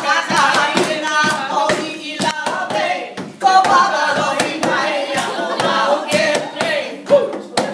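Several people singing a song for hula together, with a strummed ukulele-type instrument and hand claps keeping time.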